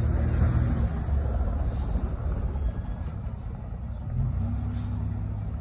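A car engine running as a vehicle drives slowly by on the street, a steady low hum that eases off about a second in and comes back near the end.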